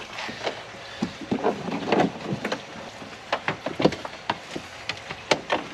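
Scattered light clicks, taps and rustles of car-audio wiring and loose tools being handled on a truck's carpeted rear cab floor.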